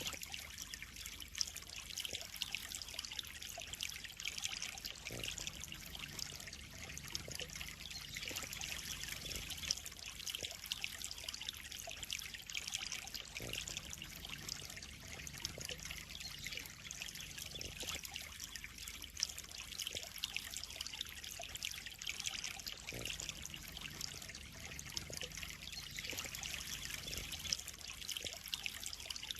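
Steady trickle of water pouring into a pond, with occasional sharper splashes.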